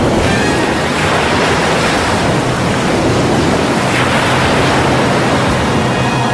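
A loud, steady rush of water, like heavy sea surf.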